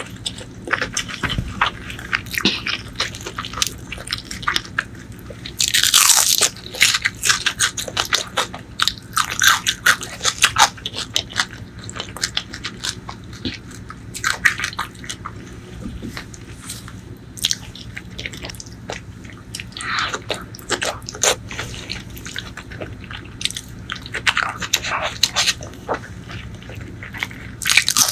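Close-miked mouth sounds of eating rice, curried eggplant and fried fish by hand: wet chewing and biting with many short, sharp clicks and crunches, loudest about six seconds in.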